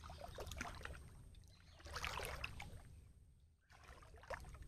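Shallow water splashing and sloshing as a man wades and moves a hand scoop net through it, in three short bursts of about a second each with quiet gaps between.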